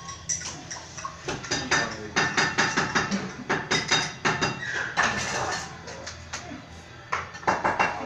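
Rapid, repeated clinking and tapping of metal on hard surfaces, some strikes ringing briefly. The clicks come thickest and loudest in the first half, with a second cluster near the end.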